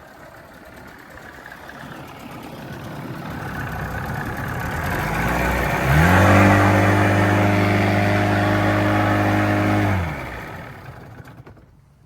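Outboard motor running in gear under load with its new fuel pump. The engine sound builds, then comes up to a steady high-revving tone held for about four seconds before it is throttled back and dies away.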